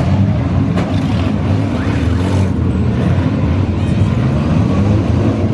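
Demolition derby minivans' engines running loud and steady, with a sharp knock about a second in.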